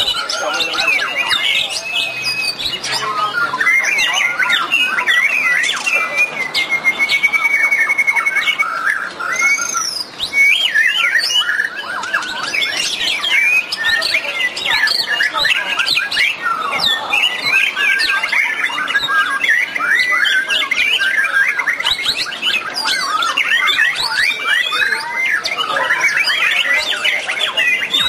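Many white-rumped shamas (murai batu) singing at once in a dense, overlapping chorus of whistles, chatter and trills, the crowded sound of a songbird contest. A long rapid trill stands out from about six to nine seconds in.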